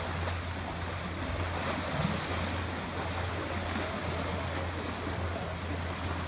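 Water splashing and churning as an elephant wades through a pool, over a steady low hum.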